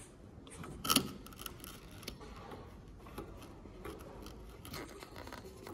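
Small metal clicks and taps from a tractor tail-lamp's metal bowl and fittings being handled, with one sharper click about a second in.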